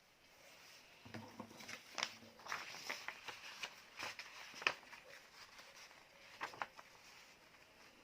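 A sheet of paper rustling and crinkling as it is handled and folded, with irregular short, sharp crackles.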